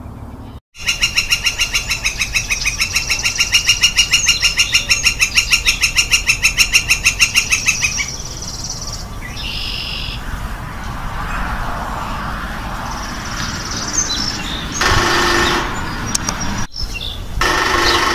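Northern flicker giving its long call: a rapid, even series of loud, ringing notes, about seven a second, kept up for some seven seconds. A few shorter calls and two brief louder bursts follow near the end.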